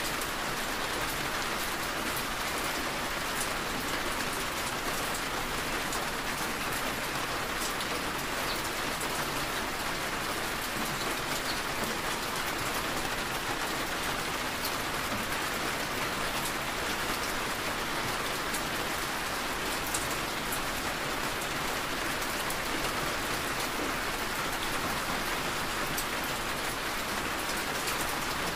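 Steady rain falling on a moving car's windshield and roof, heard from inside the car: a constant hiss with scattered sharp ticks of single drops.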